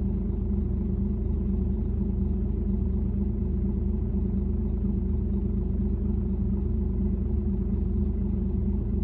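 Engine idling steadily: a constant low hum that holds the same pitch throughout, with no revving.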